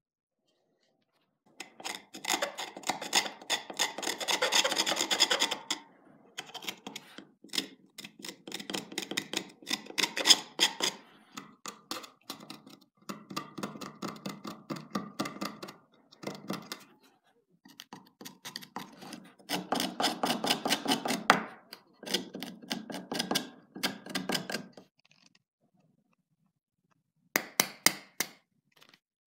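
Knife blade scraping along an ash wood hatchet handle in quick repeated strokes, in bursts of a few seconds separated by short pauses.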